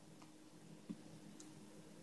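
Near silence: a faint steady low hum with a few soft clicks, the clearest about halfway through.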